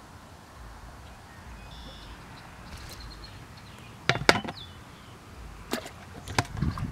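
White plastic bucket lid being handled: a cluster of sharp knocks and clicks about four seconds in, then a few more clicks and low thumps near the end.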